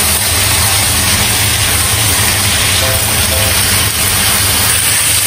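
Diced chicken, onion and button mushrooms sizzling in a hot pan as they are stir-fried with a wooden spatula, over a steady low hum.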